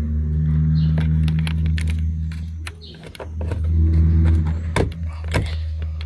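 A steady low hum, dipping briefly about three seconds in, under sharp plastic clicks and knocks as a roof monitor's wiring socket is worked loose by hand.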